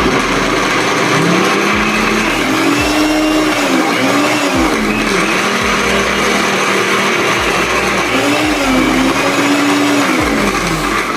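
Electric kitchen blender running hard on carrot cake batter, its motor labouring so that the pitch sags and recovers a few times.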